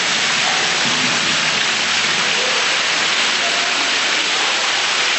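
Water from a museum flash-flood display cascading over artificial rock ledges into a pool: a loud, steady rush of splashing water.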